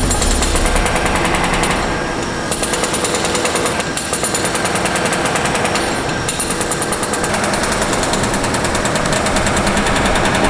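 Demolition hammer chipping away at the concrete underside of a ceiling: loud, rapid continuous hammering that eases briefly about two and six seconds in.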